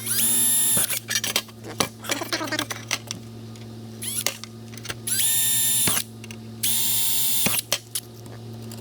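Power drill run in three short bursts, each spinning up, holding a steady whine for about a second and winding down. Small clicks and rattles of hardware come between the runs.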